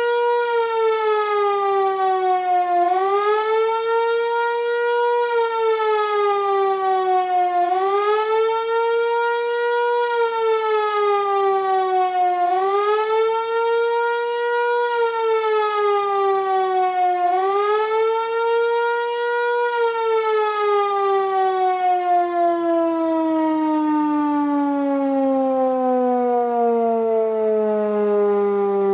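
Hörmann HLS 373 high-performance civil-defence siren wailing, its loud tone swelling up quickly and sinking slowly about every five seconds. About twenty seconds in it stops cycling and slides down in one long falling tone as the signal ends.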